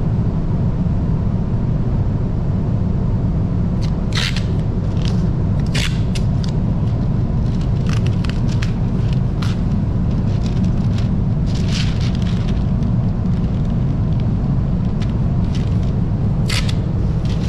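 Masking tape being pulled off its roll and torn, with masking paper rustling: several short, sharp rips scattered through, over a steady low machine rumble.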